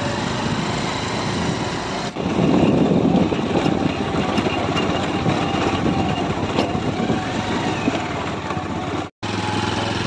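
Motorcycle engine running while riding, with wind rushing over the microphone. It gets louder about two seconds in and cuts out for a moment near the end.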